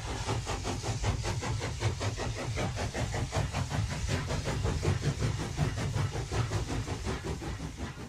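Railway train running, with a rapid, even beat and a deep rumble under it.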